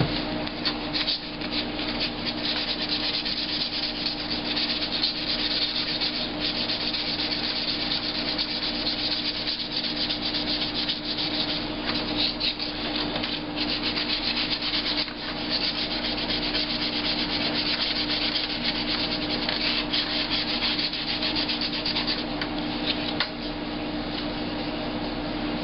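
Sandpaper scrubbed back and forth over filler putty on a plastic laptop case, a continuous scratchy rasping.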